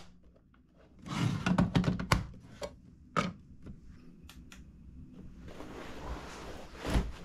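Plastic clicks and knocks as a Ryobi LED lantern is handled, snapped together and set down on a wooden workbench. Cloth rustling starts about two-thirds of the way in, with a thump near the end.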